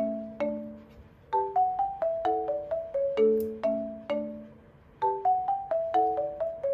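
Background music: a light melody on a marimba-like mallet instrument. Quick runs of struck notes ring and fade, with short pauses between phrases, about a second in and again near five seconds.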